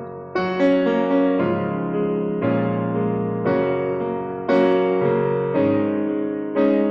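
Piano playing slow held chords in an instrumental passage between sung lines, a new chord struck about once a second and left to ring and fade.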